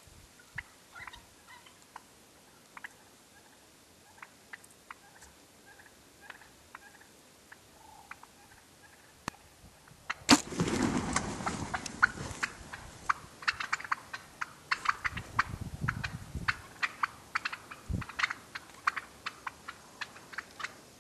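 Wild turkeys calling softly, a scatter of short clucks. About halfway in, a sudden loud commotion starts: rustling and rapid sharp clicks and knocks that go on to the end, with one heavy thump near the end.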